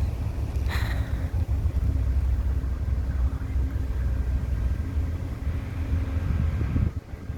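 Diesel passenger locomotive idling at a station with a steady low rumble and a faint steady hum, and a short hiss about a second in.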